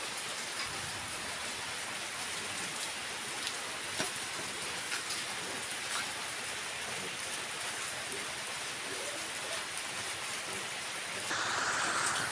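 Steady rain falling, an even patter with a few single louder drops, growing a little louder near the end.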